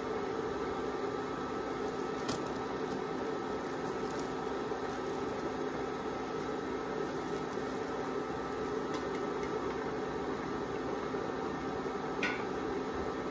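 Steady hum of an induction cooktop's cooling fan under a pan of simmering coconut milk, with a few faint clicks and one sharper short clink near the end.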